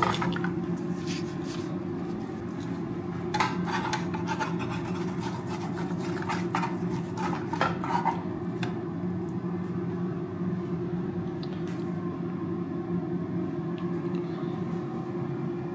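A metal spatula scraping and knocking in a frying pan as fried eggs are slid out, in several clusters of clicks and scrapes during the first nine seconds, over a steady low hum.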